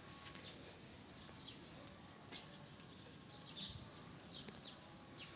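Faint, scattered bird chirps, short and high-pitched, over a quiet outdoor background.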